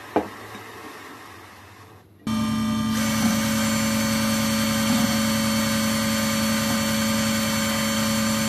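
Bench grinder starting abruptly about two seconds in and running with a steady hum, while a cordless drill spins a small steel pin against the grinding wheel to shape its point; a second, higher steady tone joins about a second later. It stops suddenly at the end.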